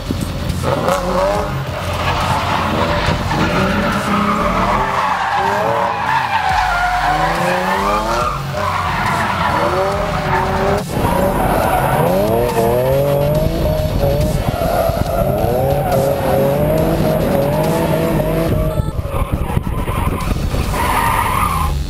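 Nissan 350Z drifting: its V6 engine revs up and down over and over as the rear tyres spin, squeal and skid across the pavement.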